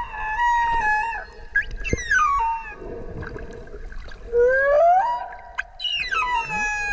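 Whale calls: pitched, whistle-like moans with several overtones, each sweeping down in pitch and then holding a steady tone. One call rises instead, about four and a half seconds in.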